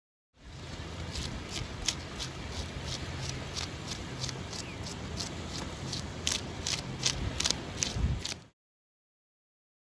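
Knife scraping along a barramundi's side in short repeated strokes, about two or three a second, sharp and scratchy, over a steady low rumble.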